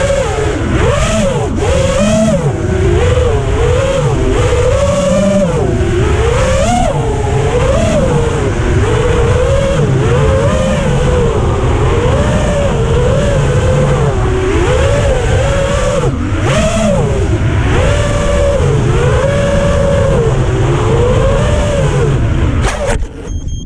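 FPV racing quadcopter's brushless motors and propellers whining, the pitch rising and falling constantly with the throttle. The sound cuts off suddenly near the end.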